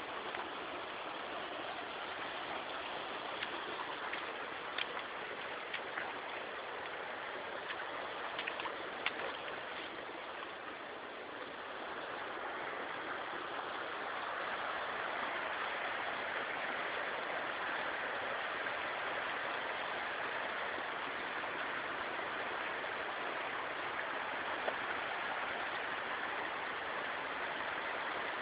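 Water of a shallow, rocky stream rushing over stones: a steady hiss of flowing water that gets louder about halfway through.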